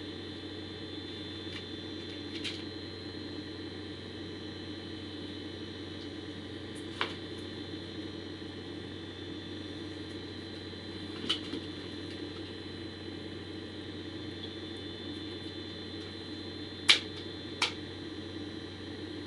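Steady hiss and hum from a webcam microphone, with a few sharp clicks and taps from small packaged items being handled. The two loudest clicks come close together near the end.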